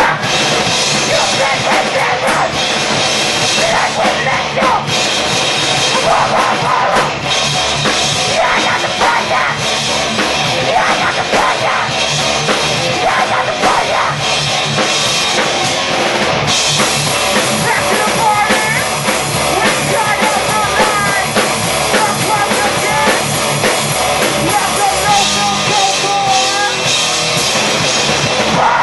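Rock band playing live at a steady loud level, with a driving drum kit under the rest of the band.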